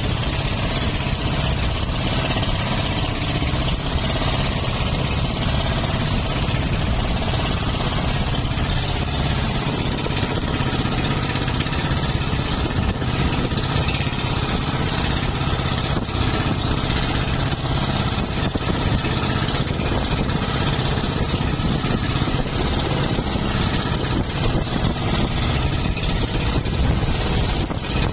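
Outrigger fishing boat's engine running steadily at an even speed.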